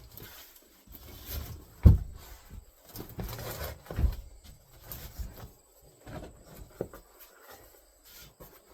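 A wooden furniture dolly being turned over and handled on the bench: two loud knocks of wood, about two and four seconds in, among lighter scraping and rustling.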